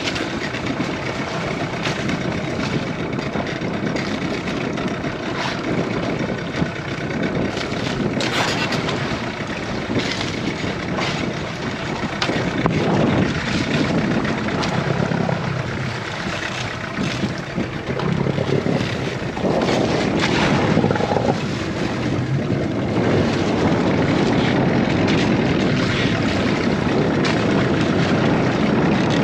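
Boat engine running steadily, kept on to hold the boat against a strong current, under a dense rushing noise; it gets louder in the last third.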